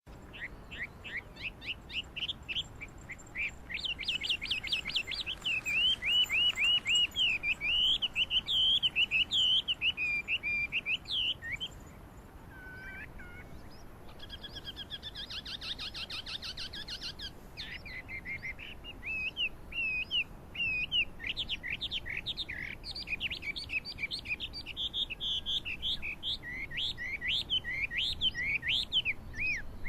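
Chinese hwamei singing: long, loud runs of fast repeated whistled notes in varied phrases, with a brief lull and a quieter rapid trill about halfway through before the song picks up again.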